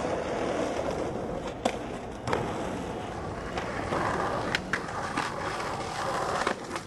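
Skateboard wheels rolling on pavement, broken by several sharp clacks of the board popping and landing.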